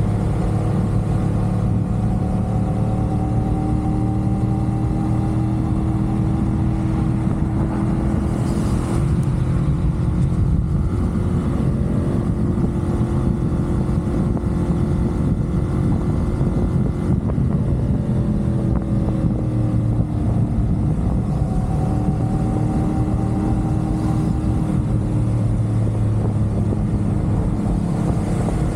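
CFMoto 450SR parallel-twin motorcycle engine running at cruising speed, its pitch rising and falling slightly with the throttle, over a dense low rumble of road noise. A brief hiss comes about nine seconds in.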